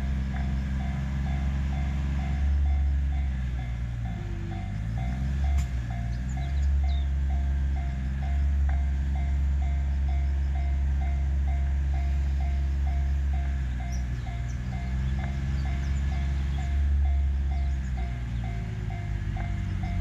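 An old Japanese level-crossing alarm sounding its warning, a steady repeated ringing at about two to three strikes a second. Underneath runs a deep engine drone that dips and rises in pitch twice.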